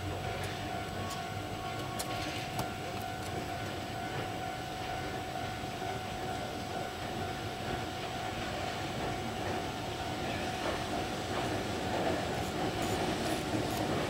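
A train hauled by two coupled Deki electric locomotives pulling away along the track. The wheels give a steady running rumble on the rails, with occasional sharp clicks as they cross rail joints and points.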